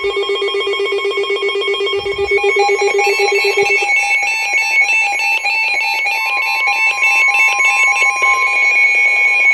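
NOAA Weather Radio alert signal: rapid warbling digital data bursts (the SAME alert header), and then, about six seconds in, the steady single-pitch warning alarm tone begins. It signals that a new severe thunderstorm warning is about to be read.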